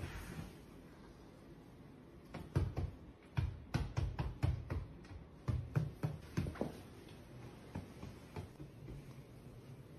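A quick, irregular run of about fifteen sharp knocks and thumps, starting about two seconds in and stopping about seven seconds in.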